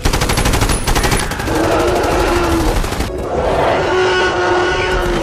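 Film creature sound of the Thanator from Avatar, a big cat-like predator, growling and roaring: about a second of rapid rattling growl, then two long held roars, one after the other. The roars are made to sound like the Jurassic Park T. rex.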